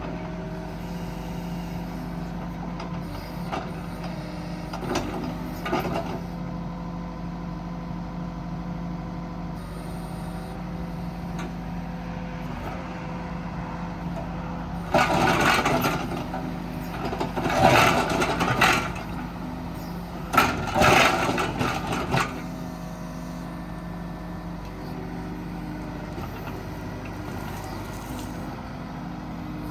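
Mustang 550z 5.5-ton mini excavator's diesel engine running steadily while the machine digs, with a few light knocks early on. Three louder, harsher stretches of noise come around the middle as the bucket works the ground.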